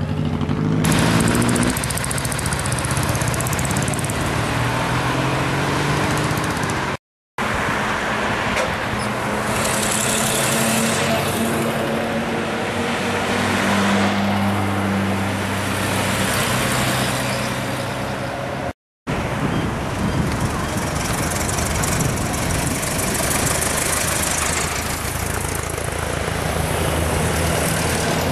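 Vintage and veteran cars driving past one after another, their old engines running steadily, rising and falling as each car passes, over road and tyre noise. The sound breaks off twice for a moment.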